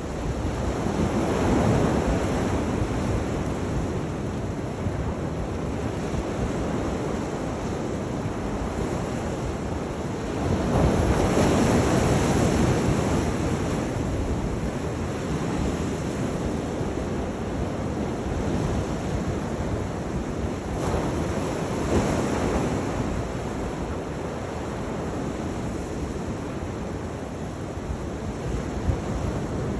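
Sea waves breaking and washing in, rising louder three times, with wind blowing across the microphone.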